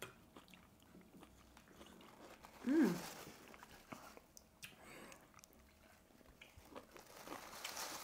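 Quiet chewing and crunching of brine-pickled vegetables (cauliflower, peppers, carrot), with a short hummed 'mm' about three seconds in.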